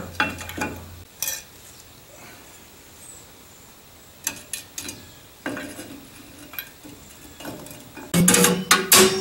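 Hand tools and loose metal parts clinking and clicking in scattered light taps, with a louder run of metallic clatter near the end.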